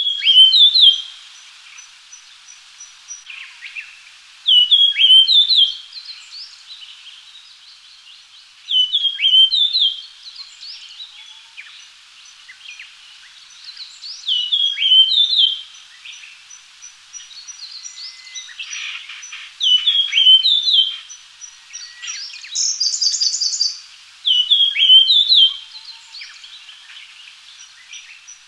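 Japanese grosbeak singing: a short phrase of clear, slurred whistled notes, repeated six times about five seconds apart. Fainter high calls and ticks of other birds run between the phrases.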